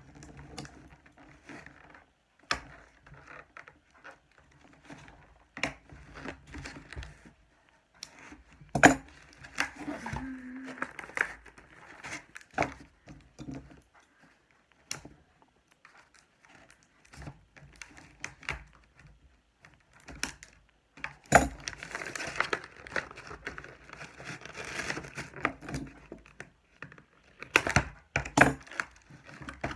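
Clear plastic doll packaging crinkling and rustling as it is handled and the doll is cut loose from its tray. Scattered sharp clicks and knocks run through it, with a few louder ones.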